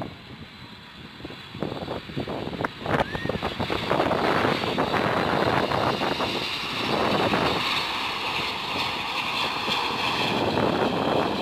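Boeing 747 freighter's four jet engines on landing approach, passing low and close: a jet roar that swells over the first few seconds and then holds loud, with a high whine over it. Wind buffets the microphone.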